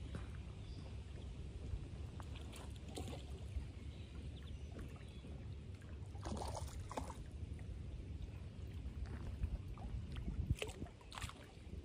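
Low wind rumble on the microphone and small waves lapping at a rocky lake shore. Scattered light clicks and a short rustle about six seconds in, with two sharp ticks near the end, come from the handline being cast and pulled in by hand.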